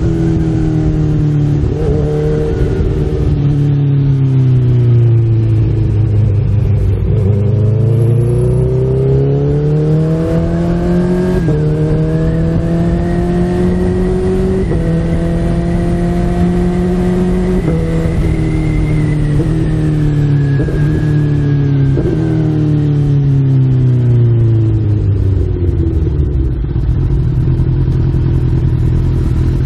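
Honda CB1000R's inline-four engine under way, heard from the rider's seat. The revs fall, climb and fall again as the bike accelerates and slows, with several abrupt steps in engine pitch as gears are changed on the bike's factory two-way quickshifter.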